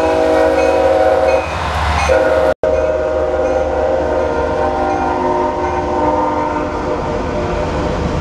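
Diesel freight locomotive's air horn sounding a held multi-note chord over the rumble of the passing train's engines and wheels. The sound cuts out for an instant about two and a half seconds in, and the horn carries on more softly afterwards.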